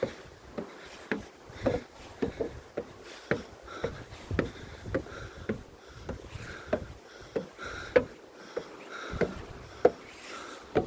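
An irregular series of sharp knocks and clicks, about two a second, with a light rushing background.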